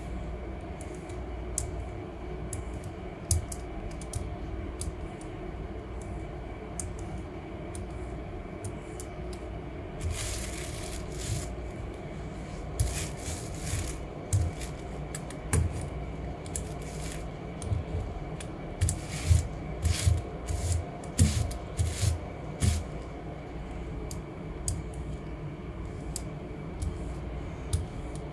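Hand brayer (ink roller) rolling back and forth over a gel printing plate and paper, with frequent clicks and rattles from the roller and short rustling, scraping sweeps that are busiest through the middle. A steady low hum runs underneath.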